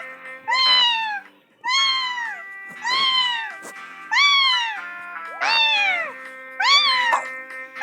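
A person imitating a cat, meowing in a high voice: about seven meows roughly a second apart, each rising briefly then falling in pitch. Background music with steady held tones plays underneath.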